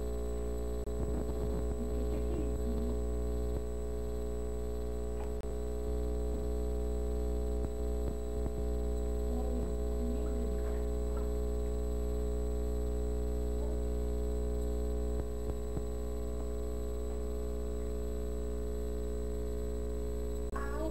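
Steady low electrical mains hum with a ladder of overtones and a thin, steady high whine, with a few faint, brief noises over it.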